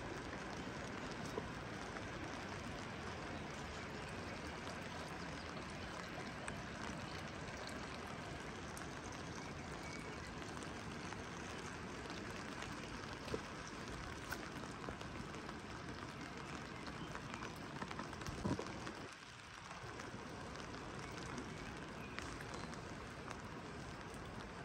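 Steady rain falling, with scattered sharper drips and taps of drops landing close by. A couple of louder knocks come about three-quarters of the way through, followed by a brief dip in the rain noise.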